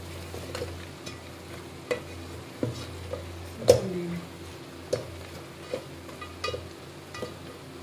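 Wooden spoon stirring mutton and tomatoes frying in an aluminium pot, sizzling, with the spoon knocking against the pot about once a second; the loudest knock comes near the middle. A low steady hum runs underneath.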